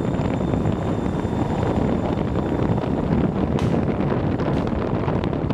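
Wind rushing steadily over the microphone of a moving motorbike, mixed with the bike's engine running.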